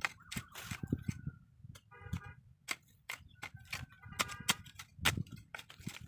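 Hoe blade chopping into earth and scraping dirt while digging a pit: a run of irregular strikes. Two brief pitched calls sound in the background, about two and four seconds in.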